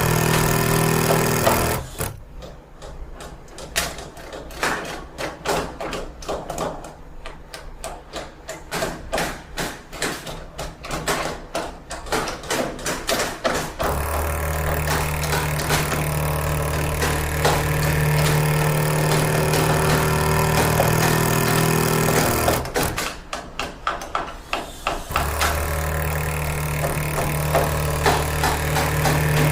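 Renovation work: a motor-driven machine running with a steady low hum, cutting out twice. While it is off, there are long stretches of rapid, irregular knocking and clattering.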